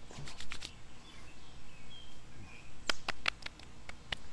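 Hands patting and slapping aftershave onto a freshly shaved face: a few quick pats right at the start, then a run of sharp slaps over the last second and a half.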